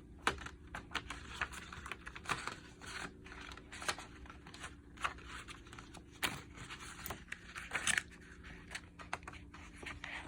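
Paper and plastic being handled: rustling and crinkling with repeated sharp clicks, as a CD booklet is leafed through and its plastic case handled.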